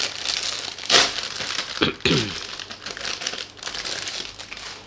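Clear plastic polybag crinkling as a plastic model-kit runner inside it is handled, with a louder crinkle about a second in.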